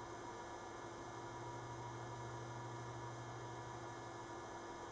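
Steady electrical hum with a faint hiss underneath, unchanging throughout.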